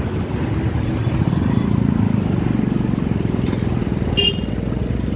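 Motorcycle engine running as the bike rides slowly through a toll lane among other motorbikes, the engine note picking up a little after about a second and a half. A few short clicks and a brief high tone about four seconds in.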